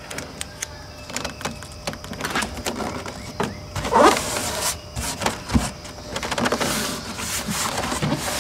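Green duct tape being laid onto corrugated cardboard and pressed down by hand: scattered crinkles, taps and rubbing, with a longer hissy rub of palms smoothing the tape near the end.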